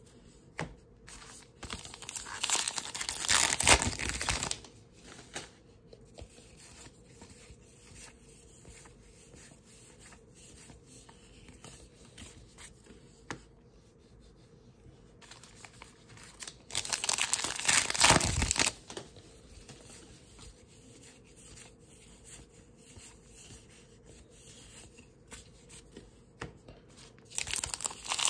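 Baseball card pack wrappers being torn open and crinkled in three loud bursts: a couple of seconds in, about two-thirds of the way through, and again near the end. In between, quieter rustles and clicks of cards being handled.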